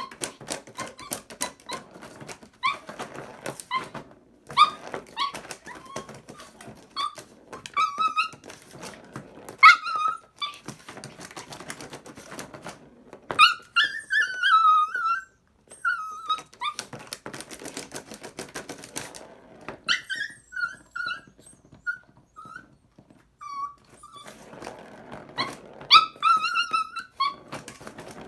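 A puppy whining and whimpering in repeated high-pitched bursts, over a steady run of rapid clicks and clatter.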